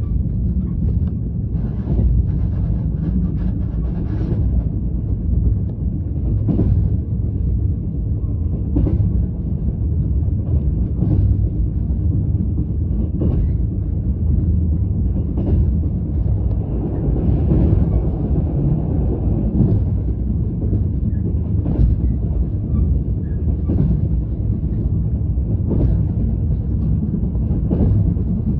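Steady low vehicle rumble with a sharp knock about every two seconds.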